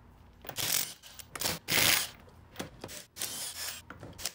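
Short, irregular scraping and rattling noises, the loudest about two seconds in, as lug nuts are worked off a car wheel by hand.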